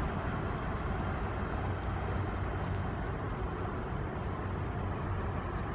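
Steady hum of road traffic with a low rumble, unbroken throughout.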